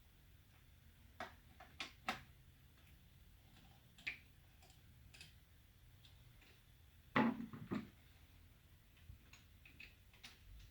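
Scattered clicks and light knocks of small plastic parts of a Fleck 5600 water softener valve being handled and taken apart, the loudest a short cluster of knocks about seven seconds in.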